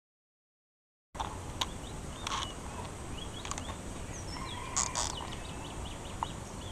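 Dead silence for about the first second, then outdoor ambience: a steady background hiss with birds chirping in short calls and a few sharp clicks.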